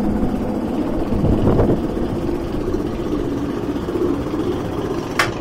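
Lift-hill chain of a Bolliger & Mabillard inverted roller coaster running steadily as the train is hauled up the hill, a continuous mechanical rumble. Near the end a brief high-pitched squeal cuts in.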